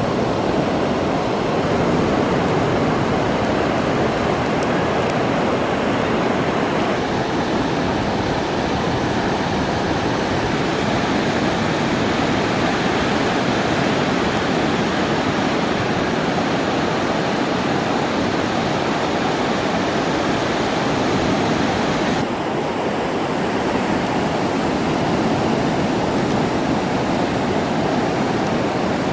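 Ocean surf: a continuous wash of breaking waves, steady and loud, with the hiss briefly thinning about two-thirds of the way through.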